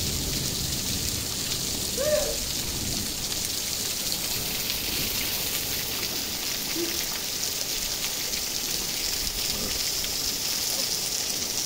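Heavy rain falling steadily on trees and grass as an even hiss. A short pitched call stands out about two seconds in, with a couple of fainter ones later.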